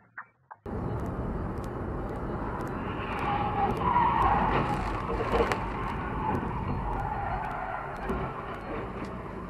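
Dash-cam road noise from inside a moving car on a highway, with tyres skidding and squealing from about three and a half seconds in and two sharp bangs about a second apart during it, as a box truck ahead crashes. The road noise then carries on more quietly.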